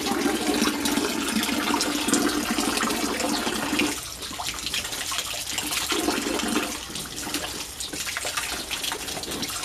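Water from a hose pouring into a shallow paddling pool, a steady splashing rush. About four seconds in it drops and turns choppier as a hand breaks into the stream.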